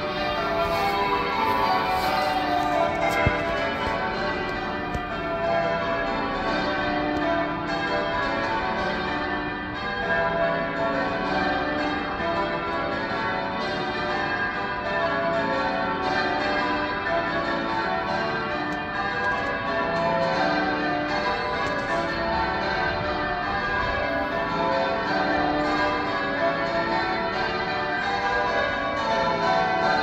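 Manchester Cathedral's tower bells being rung, a continuous, even run of overlapping bell strokes following one another without pause.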